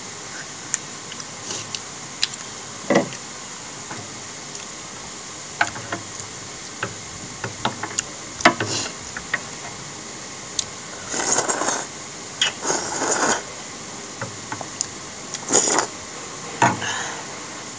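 A person eating noodle soup: chopsticks click against a glass bowl now and then, with mouth and chewing sounds. Noodles are slurped in several hissing pulls, two back to back about 11 to 13 seconds in and another about 15 seconds in.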